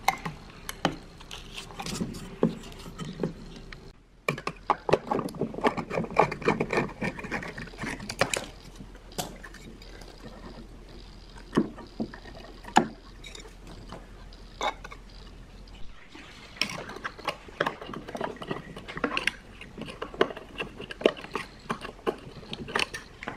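A small driver and its metal bracket being worked loose from an old Bose Direct/Reflecting speaker cabinet with pliers and a screwdriver: scattered clicks, scrapes and metal rattles. The noise is busiest about five to nine seconds in and again toward the end.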